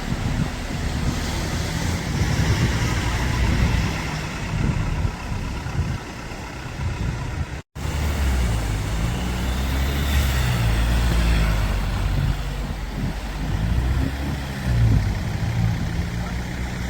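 Off-road 4x4 vehicle engines running at low revs, their pitch rising and falling. The sound cuts out completely for a moment about eight seconds in, then carries on.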